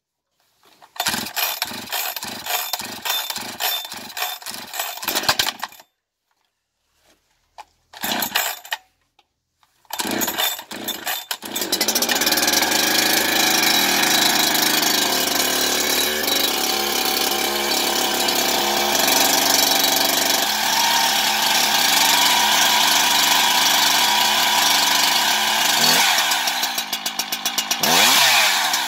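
Husqvarna 365 X-Torq two-stroke chainsaw being started with the recoil starter: a run of even pulls about two a second, a pause, then short bursts as the engine tries to catch. About ten seconds in it catches and settles into a steady idle, and it is revved up and down twice near the end.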